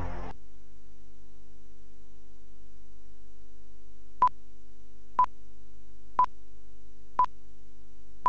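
Broadcast time-signal pips: four short electronic beeps at one pitch, exactly a second apart, leading into a longer beep at the very end, over a steady low hum.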